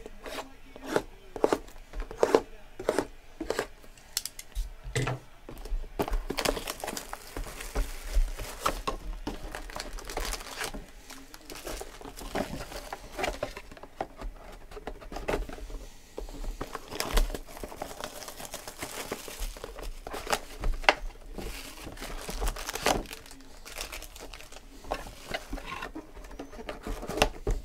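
Foil-wrapped 2016 Panini Prizm Football jumbo packs crinkling and rustling as they are lifted out of their cardboard hobby boxes. It starts with a series of sharp knocks and taps of the boxes being handled, then goes on as steady crinkling with scattered clicks.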